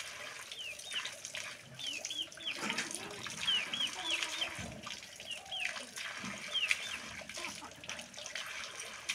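Birds chirping: short, high, downward-hooking calls in little runs of two to five, repeated on and off.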